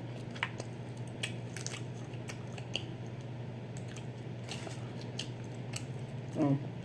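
Close-up mouth sounds of eating boiled shrimp and crawfish: scattered wet smacking clicks and chewing over a steady low hum. Near the end there is a short, low vocal sound.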